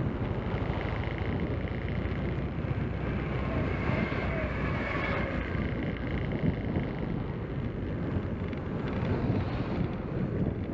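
Wind buffeting the microphone over the steady engine and road noise of a moving motorcycle.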